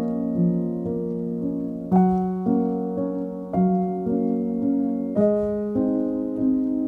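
Background music: slow, calm notes and chords struck every second or so and left to ring and fade.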